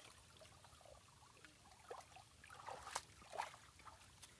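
Faint trickling and dripping of water off a fine mesh net being drawn through shallow water, with a few brief splashes between about two and three and a half seconds in.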